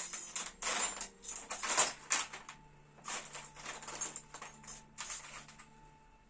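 Hands handling things: a string of short, irregular rustles and clacks, several a second, that die away about a second before the end.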